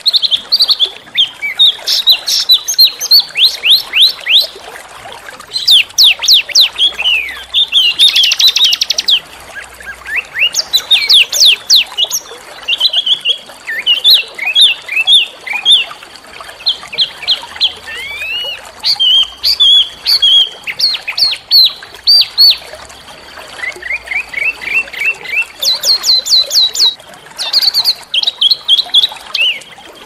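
A small songbird singing loud, rapid phrases of sharp, downslurred high notes and quick trills in repeated bursts, with a brief buzzy rasp about eight seconds in. A faint, thin, steady high tone runs beneath the song through the middle.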